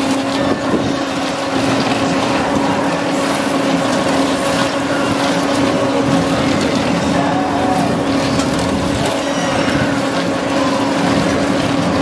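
A spinning carnival tub ride running: a steady motor hum over a constant mechanical rumble.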